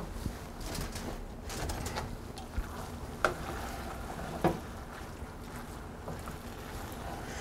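A wooden spoon stirring thick, wet risotto with beans in a stainless steel pot, working in stock: soft, wet scraping, with a few light knocks of the spoon against the pot, one about three seconds in and one about four and a half seconds in.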